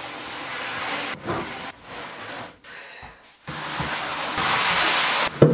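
Unfinished pine IKEA cabinet slid across a wooden floor in several pushes, a hissing scrape each time. It ends in a sharp knock as the cabinet comes to rest.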